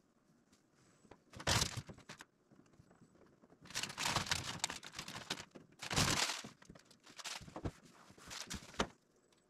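Masking material being handled and smoothed on a car roof: several bursts of crinkling and rustling with a few thunks, loudest about a second and a half in and again around six seconds in.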